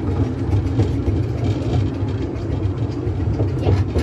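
Miniature steam railway train running along the track, heard from on board: a steady low rumble of the wheels on the rails with faint scattered clicks.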